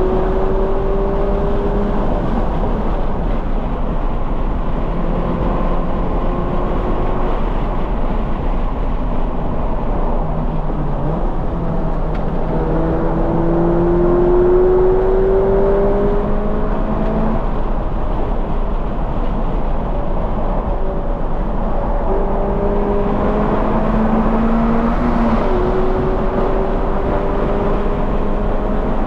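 2020 Toyota 86's 2.0-litre flat-four engine, breathing through a Corsa cat-back exhaust, at full lap pace. It climbs in pitch through the revs several times and drops back between pulls, over a steady rushing noise.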